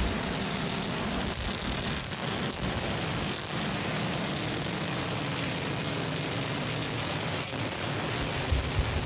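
Starship SN8's three Raptor rocket engines firing during ascent: a steady, noisy rumble.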